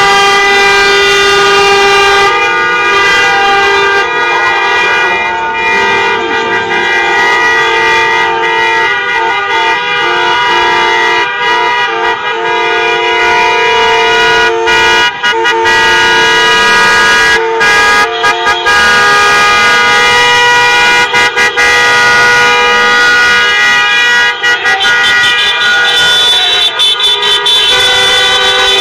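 Many car horns honking together, held on and overlapping at several different pitches with hardly a break.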